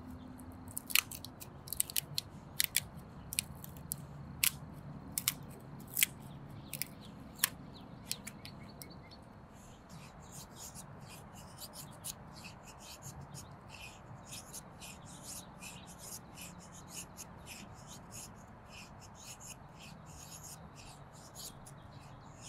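Knife blade working wood. In the first part, thin strips split off a stick with sharp cracks about once a second. From about ten seconds in, the knife shaves fine curls from a thin stick in a dense run of small, quick scraping ticks.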